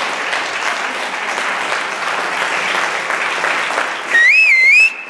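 Audience applauding. The clapping dies away about four seconds in, and one loud, high whistle wavers up and down in pitch for under a second.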